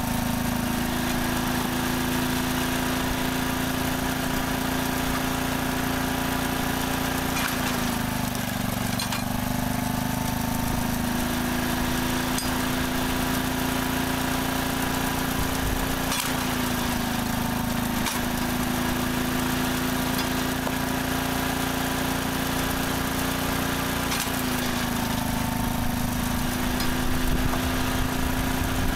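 Small Briggs & Stratton petrol engine running steadily on a flywheel-driven rack-and-pinion log splitter, its pitch sagging briefly three times as the ram drives through a log, with a few sharp knocks at those moments.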